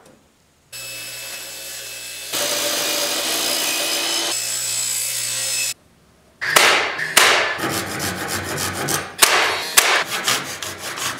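A Japanese hand saw cutting a thin wooden strip in a run of quick rasping strokes through the second half. Before it comes a steady machine noise with a low hum, which steps louder about two seconds in and then stops suddenly.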